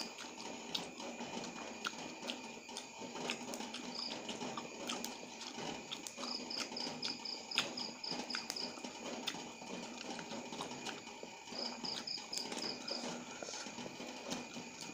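Fresh tamarind leaves being stripped from their tough stalks by hand: soft rustling with irregular small clicks and snaps. A high, rapid chirping trill sounds twice in the background, about six and about eleven seconds in.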